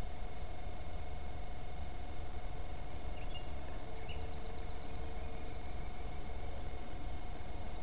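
Background ambience: faint bird chirps and quick trills over a low steady rumble and a faint steady hum.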